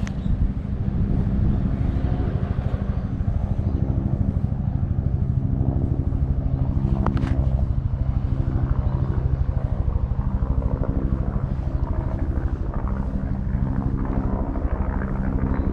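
A cat purring steadily and deeply, close to the microphone, while its fur is brushed. There is one short sharp click about seven seconds in.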